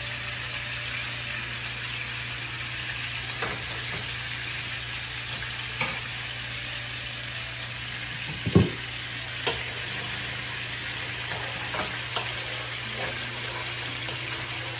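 Pieces of salted fish (makayabu) frying in oil in a nonstick pan, a steady sizzle. A few utensil clinks and knocks on the cookware, the loudest a low thump a little past halfway.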